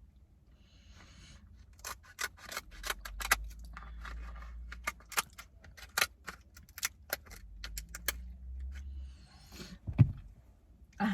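Scissors snipping and cracking through king crab leg shells: a long run of sharp, irregular clicks and snaps over a low handling rumble, with a thump near the end.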